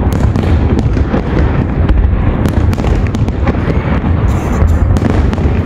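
Aerial firework shells bursting in quick succession: a continuous barrage of low booms with many sharp cracks and pops laid over it.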